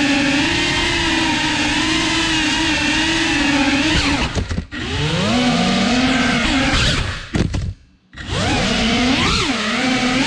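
Tiny FPV whoop drone's motors and propellers whining, the pitch rising and falling with the throttle. The whine cuts out briefly about halfway through and again, almost to silence, shortly before the end, then climbs back up as the throttle comes back on.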